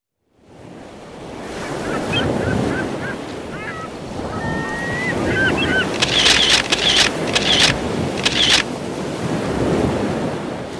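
Surf breaking on a shore, fading in at the start, with birds calling over it: short chirping calls, then a run of loud, harsh calls about six to eight and a half seconds in.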